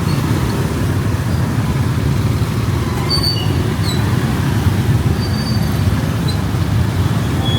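Steady low rumble of road traffic, with a few brief high squeaks from about three seconds in.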